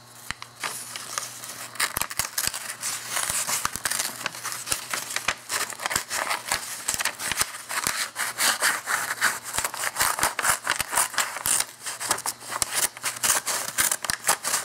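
A sheet of paper crackling and tearing as a blunt 3D-printed plastic knife blade is worked through it, a rapid, irregular run of small rips. The plastic edge tears the paper rather than slicing it.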